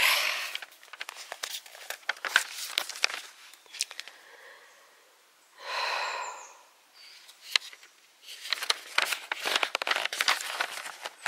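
Footsteps of a walker on a leaf-strewn road, irregular crunches and scuffs with camera-handling clicks, which stop for a few seconds in the middle. In that pause there is one breathy exhale lasting about a second.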